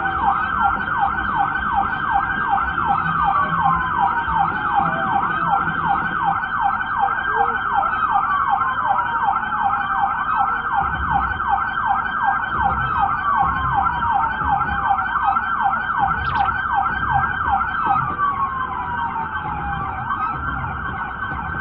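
Police car sirens sounding together: one on a rapid yelp that sweeps up and down several times a second, the other on a slow wail whose pitch falls over a couple of seconds and starts again.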